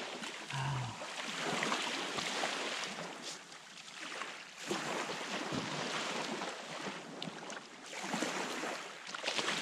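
Small waves washing in and out on a sandy shore in a steady hiss that rises and falls.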